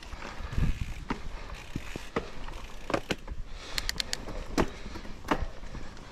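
Mountain bike rolling down a dirt forest trail: a low rumble of tyres and wind with frequent knocks and rattles from the bike over bumps, and a quick run of sharp ticks a little past halfway.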